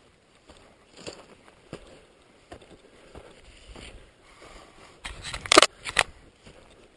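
Footsteps crunching through dry grass and brush, twigs and stems crackling and scraping irregularly, with a few louder, sharper crunches about five and a half to six seconds in.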